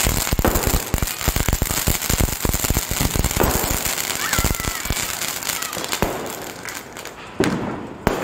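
Ajantha Fireworks Glittering Peacock ground fountain spraying sparks with a dense, rapid crackle that thins out after about three seconds, followed by a couple of sharp pops near the end.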